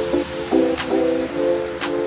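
Background music: sustained keyboard-like chords that change about every half second, with a light percussion hit about once a second.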